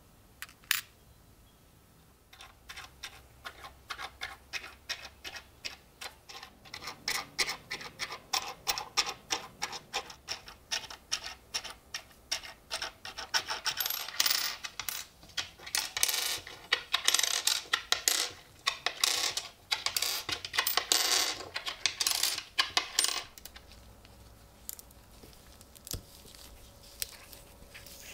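Old metal coins being set down one after another, clicking and clinking against each other and a hard surface. The clicks come faster and louder over the middle stretch, then stop about five seconds before the end.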